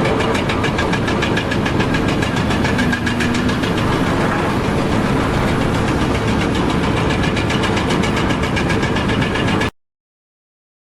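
A motor-driven machine running steadily with a fast, even pulse, then cutting off suddenly almost ten seconds in.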